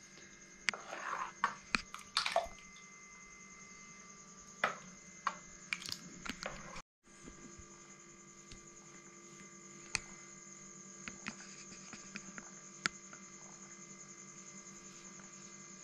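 Steady electrical hum, with faint scattered clicks and scrapes from a plastic spoon stirring custard in a steel pot over the first several seconds. There is a brief dropout about seven seconds in, then the hum continues with an occasional tick.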